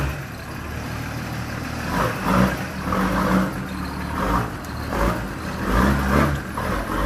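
Nissan Patrol Y60 engine running through its newly made single stainless-steel exhaust pipe, its note rising and falling several times.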